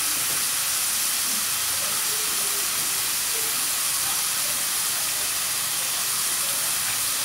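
Chicken pieces and chopped red onion sizzling steadily in an aluminium frying pan: an even, unbroken hiss with no stirring.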